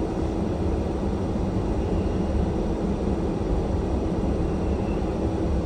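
A car driving slowly on an icy, snow-covered street: a steady low rumble of engine and tyres with a faint steady hum over it.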